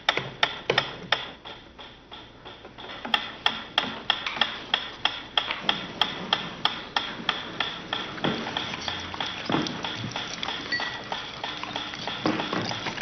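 Mechanical metronome ticking at a steady tempo, about four sharp ticks a second: the stimulus used to condition the dog to expect food.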